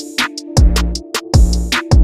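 Background electronic music with a drum-machine beat: deep bass kicks about every third of a second under a steady synth tone.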